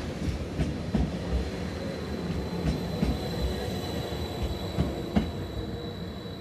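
TILO Stadler FLIRT electric multiple unit running past on the rails: a low wheel-and-rail rumble with irregular sharp knocks over the rail joints and a thin, steady high-pitched squeal from the wheels. It fades slightly toward the end.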